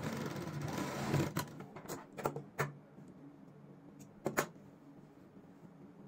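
Straight-stitch sewing machine running for about a second, then stopping. It is followed by a few light clicks and knocks of handling, and two quick scissor snips about four seconds in.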